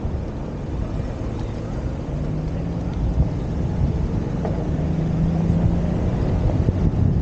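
Wind rumbling on the camera's microphone while riding a OneWheel, with a low steady hum that comes in twice for a second or so.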